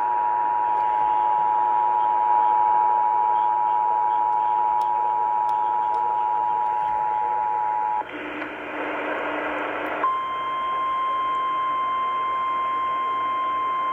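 Emergency Alert System attention signal over radio hiss: the steady two-tone alert for about eight seconds, then about two seconds of hiss, then the single steady NOAA Weather Radio warning alarm tone.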